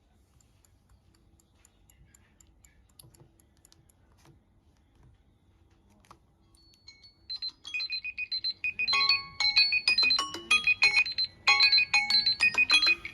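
Faint clicks and taps, then about seven seconds in a mobile phone's timer alarm goes off: a loud, rapid, repeating high electronic beep melody, joined by more notes a couple of seconds later.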